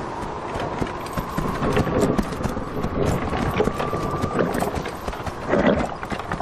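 Horses' hooves clopping, a dense run of short knocks, with a thin steady whistle that stops about four seconds in.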